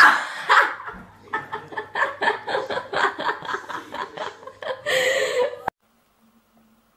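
A person laughing hard in quick, rhythmic bursts, which cut off suddenly about two thirds of the way in, leaving near silence.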